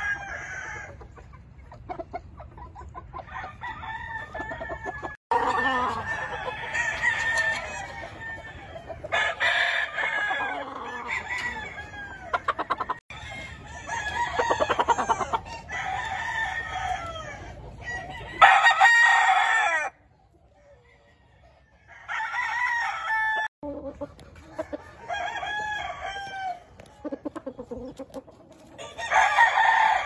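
Several roosters crowing over and over, calls overlapping, with chickens clucking between the crows. The sound breaks off abruptly a few times, with a short lull about two-thirds of the way through.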